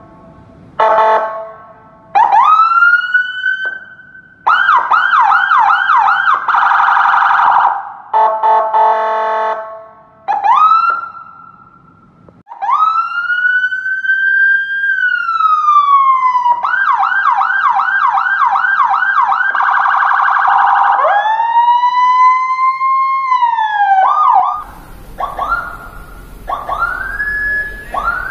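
Replica Whelen HHS3200 electronic siren module cycling through its tones: slow rising and falling wails, a fast yelp warbling about three times a second, and short buzzing horn-like blasts between them. Near the end come quick rising whoops.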